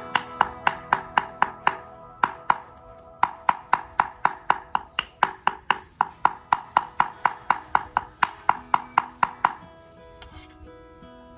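Cleaver chopping peeled shrimp on a thick wooden chopping block: fast, even strokes about four a second, with a short pause about two seconds in, stopping near the end. Guitar music plays underneath.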